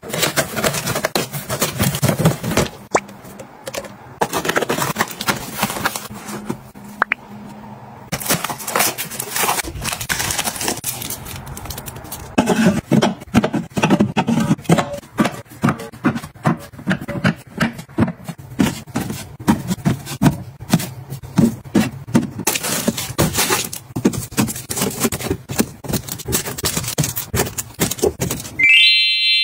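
Containers and packaging being handled and set down while organizing a kitchen: a busy run of clicks, knocks and scrapes, faster and denser in the second half. A short high beep sounds near the end.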